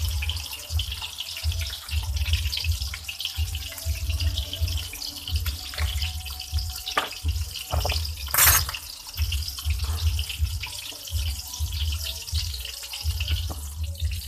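Fish frying in hot oil: a steady sizzle with small crackles, and one loud sharp pop of spattering oil about eight seconds in.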